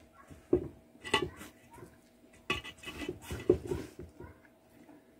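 Fingers scraping and picking through rice and cassava flour in a metal bowl, with sharp scrapes and clicks against the bowl about half a second in, around one second, and in a cluster from about two and a half to four seconds.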